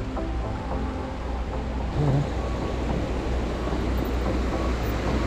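Steady low wind rumble on the microphone from riding a bike on a dirt trail, with one loud bump about two seconds in, joined by the rush of shallow creek water running over rocks.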